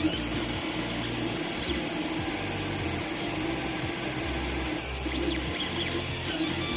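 Creality Ender 3 3D printer running a print, its stepper motors humming in low tones that jump between pitches every half second or so as the head changes speed and direction, over a steady hum.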